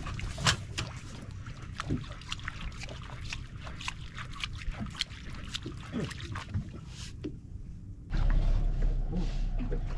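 Irregular clicks and knocks on a small fishing boat on the water, over a steady low background. About eight seconds in, a louder low rumble starts suddenly and stays.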